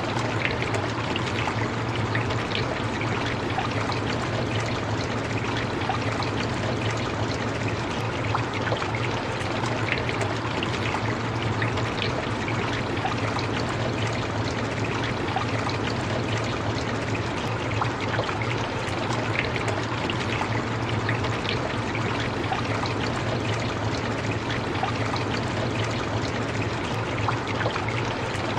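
Steady rain: an even hiss full of small drop taps, with a low steady rumble underneath.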